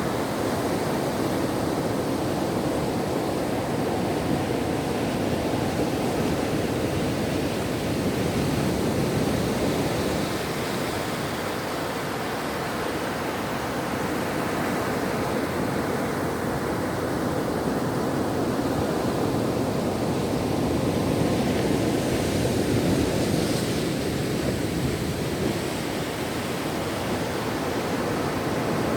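Ocean surf: a continuous wash of waves on the shore, swelling and easing slowly, a little louder about nine seconds in and again around twenty-two seconds.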